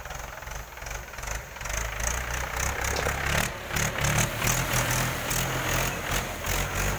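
Mahindra 415 DI tractor's four-cylinder diesel engine running as the tractor drives over spread paddy straw to thresh it. The engine grows louder about two seconds in as the tractor comes close.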